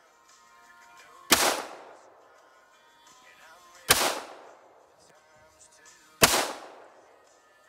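Glock 41 .45 ACP pistol fired three times, single shots about two and a half seconds apart, each crack trailing off briefly.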